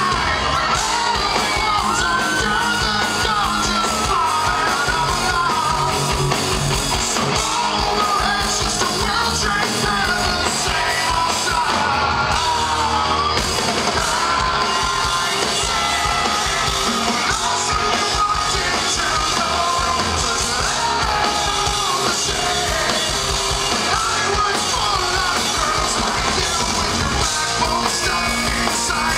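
Live rock music: a male lead singer singing over electric guitar and a full band, recorded from the audience.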